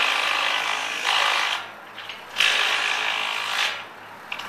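Power impact wrench driving bolts at a steel beam connection, rattling in three runs of one to two seconds with short pauses between.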